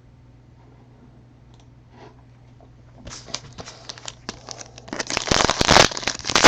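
A foil trading-card pack being torn open and its wrapper crinkled: scattered crackles starting about halfway through, growing into loud, dense crinkling near the end. Before that only a low steady hum.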